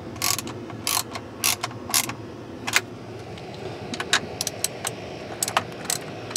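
Ratchet wrench clicking in short, irregular strokes as it tightens a nut onto a battery terminal stud, with a brief pause near the middle.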